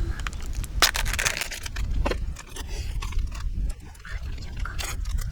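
Scraping and sharp clicking from gear being handled, over a low rumble.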